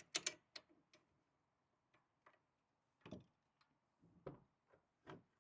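Small metal gas-system parts of a JTS M12AR shotgun clicking and tapping together as they are fitted back in by hand. A handful of short, sharp clicks: a quick cluster just after the start, then single ones spread out.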